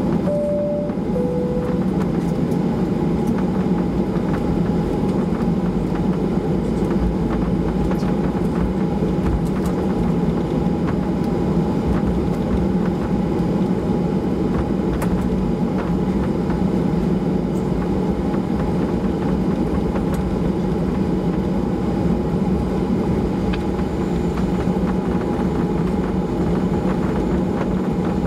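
Steady cabin drone inside a Boeing 737-800 taxiing on the ground: the CFM56-7B engines at low taxi thrust with airflow and rumble through the cabin. Near the start a two-note cabin chime sounds, high then low.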